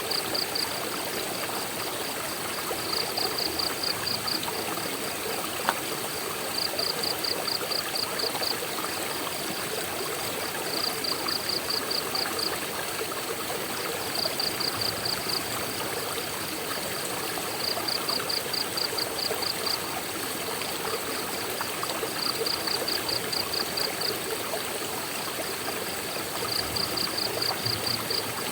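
Waterfall water running in a steady, even rush. Over it, a high-pitched pulsed trill of about eight to ten quick pulses repeats every three to four seconds.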